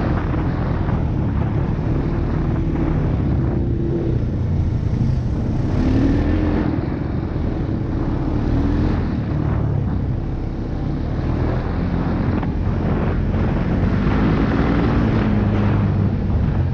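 ATV engine running on a trail ride, its pitch rising and falling several times as it revs up and down, with wind rumbling on the microphone.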